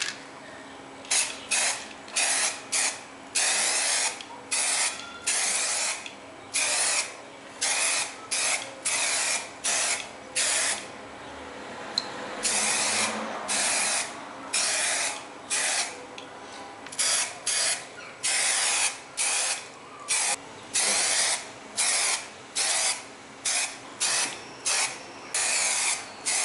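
Aerosol spray-paint can spraying paint onto a bicycle frame in many short hissing bursts, about one a second, with a few longer passes.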